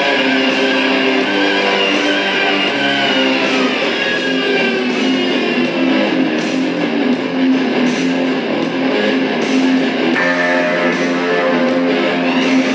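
Guitar-led music, with plucked and strummed guitar prominent; the texture changes about ten seconds in.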